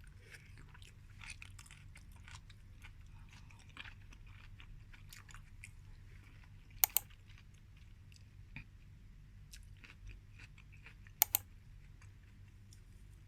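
Close-up chewing of soy-sauce grilled eringi (king oyster) mushroom, with many small wet clicks and crackles, over a steady low hum. About seven seconds in and again about eleven seconds in come two sharp double clicks, the loudest sounds.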